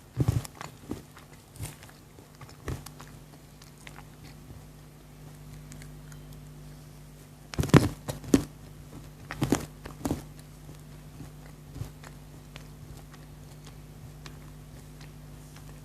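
Chocolate being bitten and chewed close to the microphone: a few crisp crunches at the start, then a louder cluster of bites and crunches about halfway through, followed by quieter chewing.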